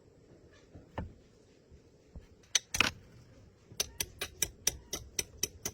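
Sharp metallic clicks: one about a second in, a couple of louder ones with a short rasp around the middle, then a steady run of about four clicks a second near the end, typical of hand-tool work on metal parts.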